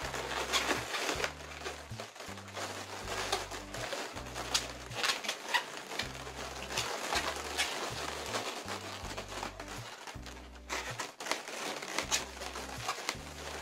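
Latex modelling balloons being handled and twisted, with short rubbing and crinkling noises, over background music with a stepping bass line.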